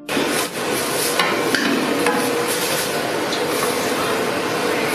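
Steady loud rushing noise of a restaurant kitchen, with a few clinks and knocks of stainless steel bowls and utensils in the first couple of seconds.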